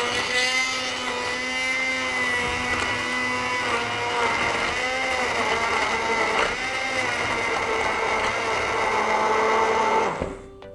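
Electric blender running, blending tulsi leaves, chopped amla, turmeric, honey and oil with water into a juice. The motor's pitch wavers as the load changes, and it cuts off about ten seconds in.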